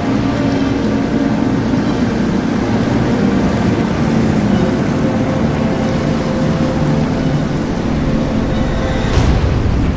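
Engines of a Leopard 31-metre motor yacht droning steadily as it runs at speed, with the rush of its bow wave. About nine seconds in the sound changes abruptly to a deeper rumble.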